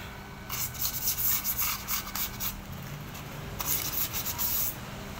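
Sandpaper being rubbed by hand over a scooter's clutch lining in quick scraping strokes, in two runs with a short pause about midway, roughening the lining so that it grips.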